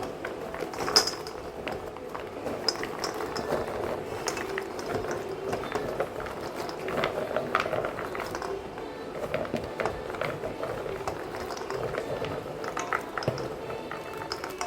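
Food bubbling in a pan as it cooks, with scattered small clicks and clinks of a utensil against the pan and one sharper clink about a second in.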